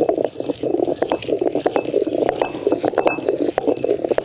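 Round stone pestle crushing softened gooseberries (amla) in a stone mortar into a thick paste without water: a continuous wet squelching, dotted with frequent sharp clicks.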